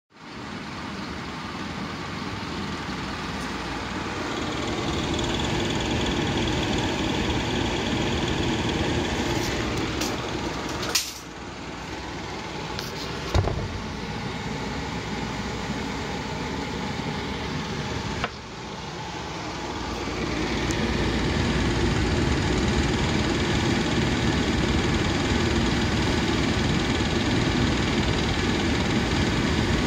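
Fan motor of a Panasonic ceiling-concealed ducted air-conditioner indoor unit running at high speed: a steady mechanical hum and rush with vibration noise, the sign of a motor worn by nearly three years of continuous high-speed running. The level dips briefly twice, and there are a couple of sharp clicks.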